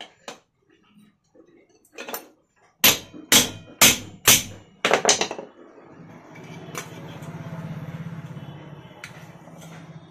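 A hammer striking a pointed steel punch set in the aluminium rivet of a cooler fan's hub, which sits on a support pipe: about six sharp metallic blows with ringing, four of them loudest, knocking out the rivet so the worn bush can be removed. From about six seconds in, a steady low buzzing hum swells and fades.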